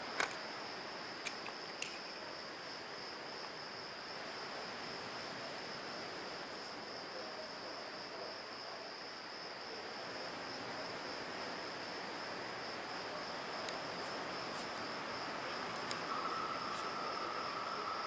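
Crickets chirping at night in a steady, high, even trill. About two seconds before the end a steady whine sets in alongside it.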